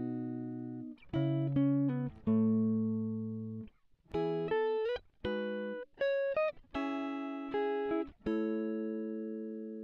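Instrumental background music: a clean-toned guitar plays slow single notes and chords that ring out and fade, a few of them sliding in pitch.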